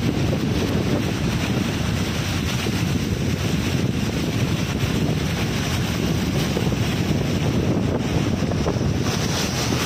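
Steady rushing noise of a car driving through floodwater, its tyres churning and spraying the water, with wind buffeting the microphone.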